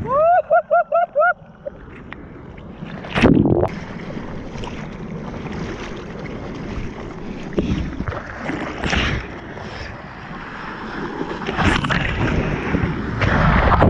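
Surf and whitewater rushing and splashing right at a mouth-mounted GoPro held at water level while bodyboarding, with louder washes of breaking water about three, nine and twelve seconds in. It opens with a quick run of five or six short high-pitched calls.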